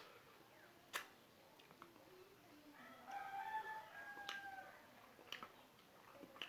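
A rooster crows once in one long call of about two seconds near the middle. Several sharp clicks come before and after it, the loudest about a second in.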